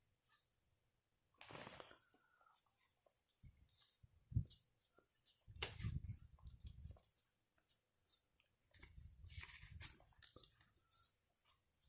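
Faint handling noises at close range: rustling and scattered light clicks, with a low knock about four seconds in and two louder stretches of rustling later on.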